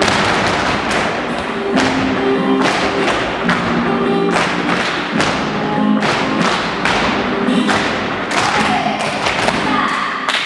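Flamenco tangos music: sustained low pitched notes under a driving rhythm of loud, sharp percussive thumps and taps, several to the second.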